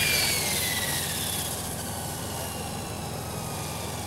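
Radio-controlled model helicopter landing: its high rotor-and-motor whine drops in pitch and fades over the first second or two as it settles on the grass.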